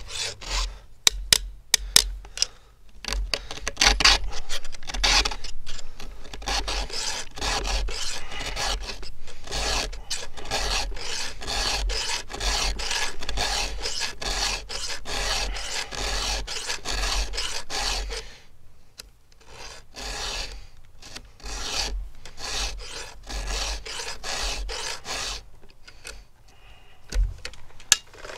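Round chainsaw file being pushed across the cutter teeth of a 3/8-pitch saw chain: a long series of rasping file strokes in quick succession, with a short pause about two-thirds of the way through and a few quieter strokes near the end.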